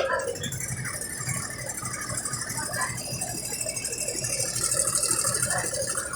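Brastemp Ative 11 kg top-loading washing machine running with a rapid rattle. The rattle starts suddenly and grows louder with a rising hiss about four seconds in.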